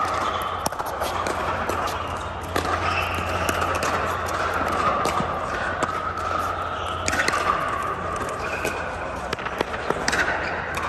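Scattered sharp pops of pickleball paddles striking plastic balls on surrounding courts, irregular and echoing in a large domed hall, over a steady low hum.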